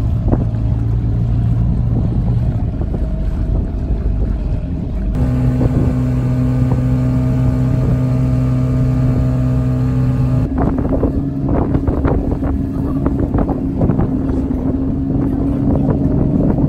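Small Tohatsu outboard motor running steadily at cruising speed, pushing a dinghy across choppy water; its hum steps to a slightly different pitch about five seconds in and again about ten seconds in. Over the last third, irregular rushes of wind and water noise come and go over the engine.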